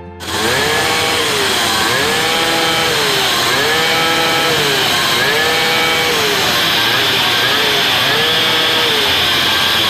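A 49cc two-stroke pocket bike engine running in place with its throttle blipped over and over: the pitch rises, holds briefly and drops back, about eight times, roughly once every second and a bit.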